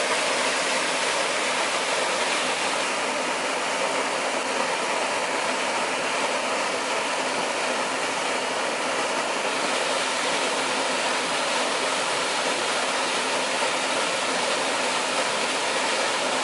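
Small waterfall pouring into a river pool: steady rushing water.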